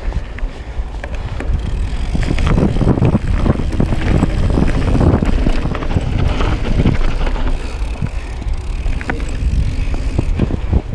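Wind rushing over an action camera's microphone as a mountain bike rolls fast down a dirt forest trail, with tyre noise and rattles and knocks from the bike over roots and bumps. It grows louder about two seconds in.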